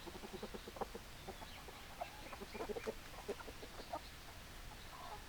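Hens clucking: a scatter of short clucks and quick runs of notes throughout.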